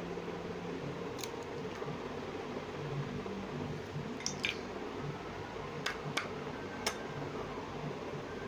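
Eggs being cracked by hand into a bowl: a few faint, sharp taps and cracks of shell, about a second in and again between four and seven seconds in, over a steady background hum.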